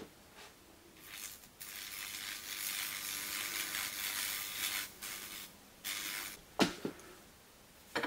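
Electrolytic weld-cleaning brush hissing and sizzling for about four seconds as it is wiped along a stainless-steel TIG weld, the current through its fluid clearing the heat tint. Two sharp clicks follow near the end.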